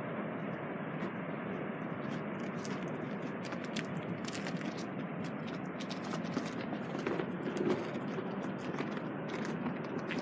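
Steady outdoor rushing noise, with scattered crackles and clicks throughout.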